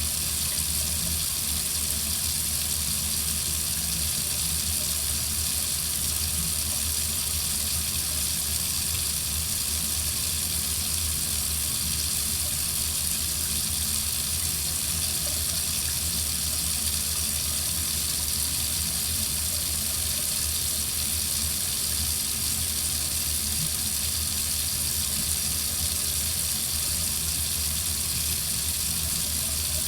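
Water running steadily from a tap into a sink, an even hiss with no change.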